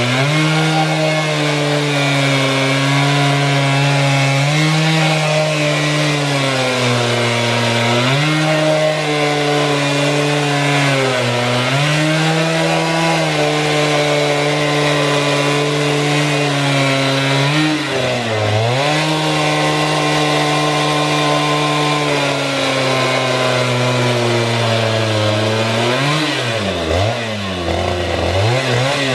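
Two-stroke chainsaw at full throttle, ripping lengthwise along a log in a chainsaw mill. The engine note sags several times as the cut loads it, most deeply near the end, then picks back up.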